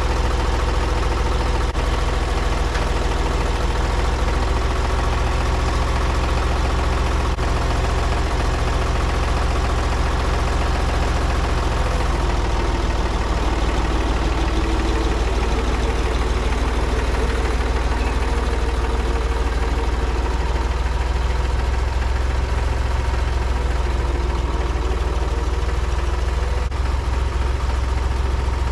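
Engine of a piece of farm equipment running steadily at low speed. Its note shifts slightly about midway.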